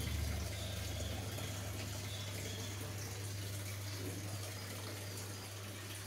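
Samsung top-loading washing machine on a test run with a replacement control module: water running into the tub, over a steady low hum.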